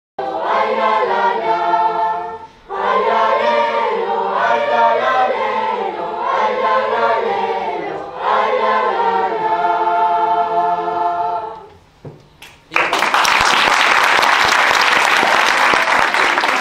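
Children's choir singing in several phrases with short pauses, stopping about twelve seconds in. About a second later the audience starts applauding.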